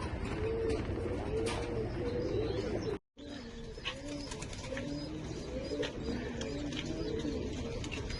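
Several racing homer pigeons cooing, their low rising-and-falling coos overlapping one another. The sound cuts out for a moment about three seconds in.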